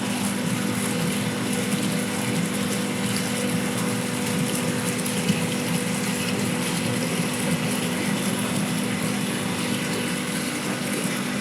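Machinery running steadily: a constant hum with a busy mechanical clatter over it.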